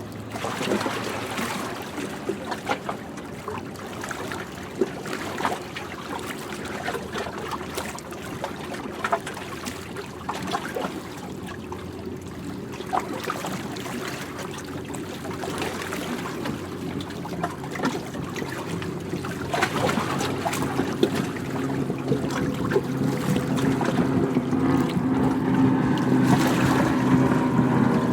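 Waves washing and splashing with many small irregular splashes. Over the last several seconds a steady motor hum comes in and grows louder.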